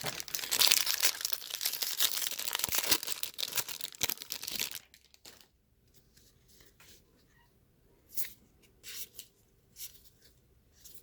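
A trading-card pack's foil wrapper being torn open and crinkled for about five seconds. After that come a few soft rustles and clicks of the cards being handled.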